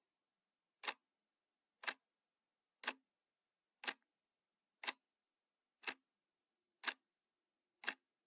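Clock ticking: a single sharp tick once a second, evenly, with silence between the ticks.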